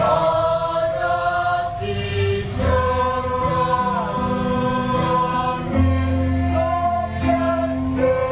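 Junior high school choir singing in several-part harmony, holding long notes that move together from chord to chord.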